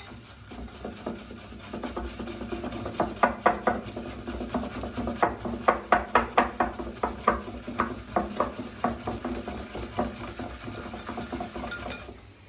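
Shaving brush whisked around a bowl, working up a thick shaving-soap lather: a run of quick, wet clicking strokes, about three a second, loudest in the middle stretch.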